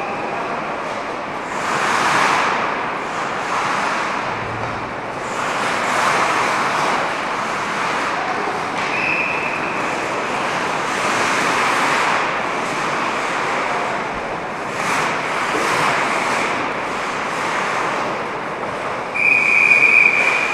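Ice hockey skates carving and scraping across rink ice, a hiss that rises and falls in swells every few seconds. A whistle blows briefly about nine seconds in and again, louder, near the end.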